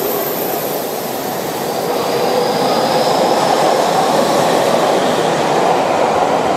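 Tokyu 5050 series electric train accelerating out of the station and running past close by, with steady wheel and running noise. A faint whine rises in pitch about a second and a half in.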